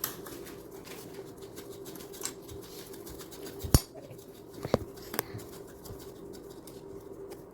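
A few sharp taps and clicks from a small digging tool working at a dig kit's excavation block, the loudest about four seconds in and two more about a second later, over a steady faint hum.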